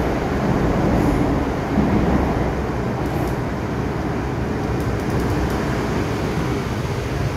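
Inside an MTR M-Train metro car under way: the steady rumble of wheels on rail and running gear, with a few faint clicks about five seconds in.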